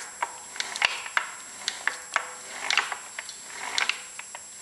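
Oil pumps of an American Pacemaker lathe apron worked by hand through the handwheel shaft: uneven metallic clicking, about three clicks a second, from the rocker arms, springs and plungers, with a few short rasps between them. The pumps are working, lifting oil from the apron sump.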